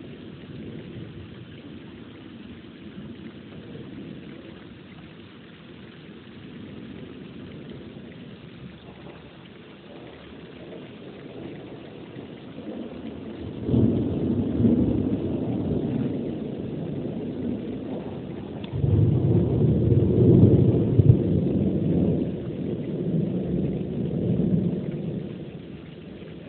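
Steady rain during a thunderstorm, then thunder rolls in about halfway through: a low rumble that starts suddenly, swells again a few seconds later, and dies away near the end.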